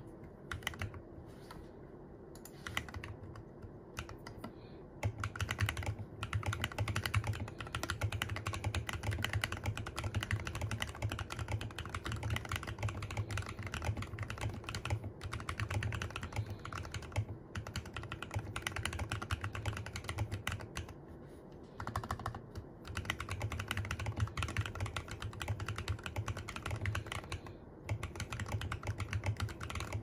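Filco Minila R mechanical keyboard with Glorious Panda tactile switches being typed on, its Costa stabilizers freshly lubed to cut rattle. A few separate keystrokes at first, then fast continuous typing from about five seconds in, with brief pauses twice.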